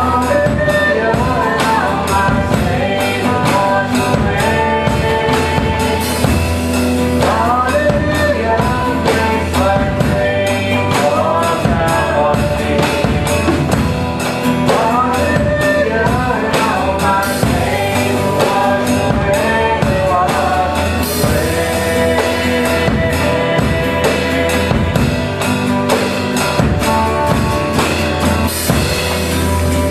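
Live Christian rock worship band playing a song: sung vocals over strummed guitars and a drum kit, at a steady full volume.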